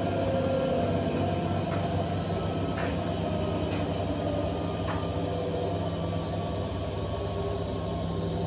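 AEG 7000 Series Lavamat washing machine running: a steady low motor hum with a faint whine that slowly falls in pitch, and a few light knocks.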